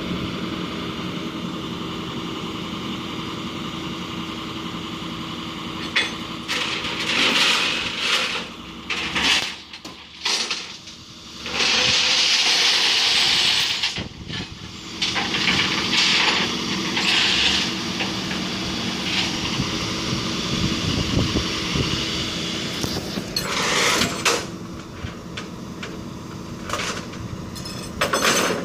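A vehicle engine running steadily, joined from about six seconds in by irregular bursts of hissing and mechanical noise, the longest a hiss of about two seconds.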